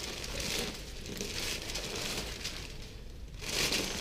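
Soft, irregular rustling and crinkling of hands and body moving on a chiropractic treatment table during a hands-on check, with no joint crack.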